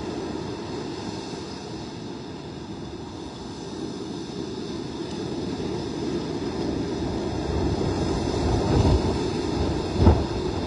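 Gusty wind rumbling over the microphone with surf breaking behind it. The rumble builds into a strong gust over the last few seconds, with a sharp buffet near the end.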